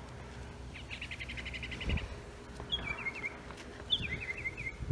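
A songbird singing: a rapid even trill of about ten notes a second, then two short phrases of quick falling chirps. Two low thumps stand out, one about two seconds in and one at the end.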